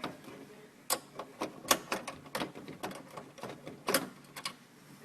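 Irregular clicks and light clacks of hand tools and small metal parts being handled while a cable bracket is unfastened inside a vending machine's elevator, about fifteen uneven sharp strikes with no steady rhythm.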